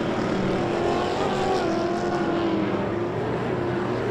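Pro Lite off-road race truck engines revving, their pitch rising about a second in and falling back about halfway through.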